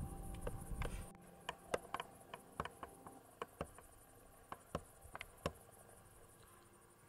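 Crickets chirping in a fast, high, pulsing trill, with a scatter of sharp irregular clicks and ticks over the first five seconds. A low rumble with a steady hum fills the first second, then cuts off.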